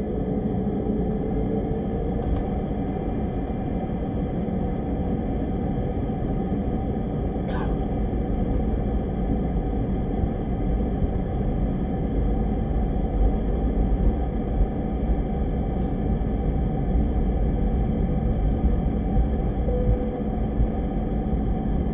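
Steady low cabin rumble inside an airliner taxiing after landing, with one brief click about a third of the way in.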